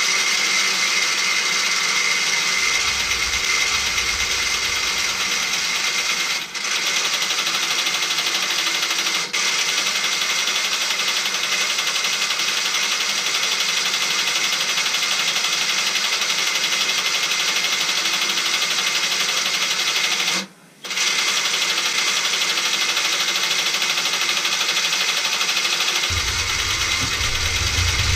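Motor and gear train of a Meccano railway crane model running steadily, a whirring with a high whine, winding in the hoist rope as the hook is raised. It cuts out for a moment about two-thirds of the way through, then runs on, and a low hum joins near the end.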